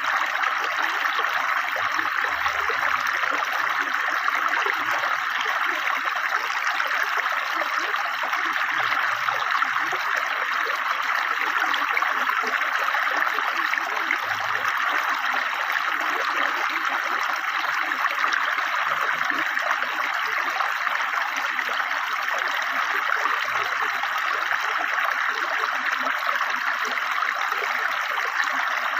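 River water flowing swiftly over stones, a steady, even rushing and gurgling.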